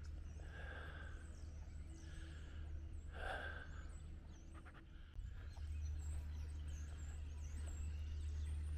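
Birds calling noisily in a tree: many short, high chirps throughout, with a few louder calls about half a second and three seconds in. Under them is a steady low rumble that grows louder about five seconds in.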